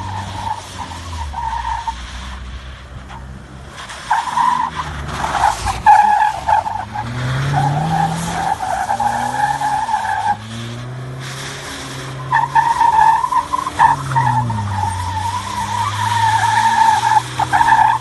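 Range Rover Evoque revving up and down again and again while spinning donuts on a dirt road, its tyres skidding through the loose dirt. A wavering high whine comes in over the engine twice.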